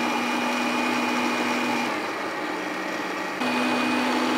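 Countertop blender running at high speed, pureeing a liquid chili mash into sauce. Its motor pitch drops a little about two seconds in and rises again a second and a half later.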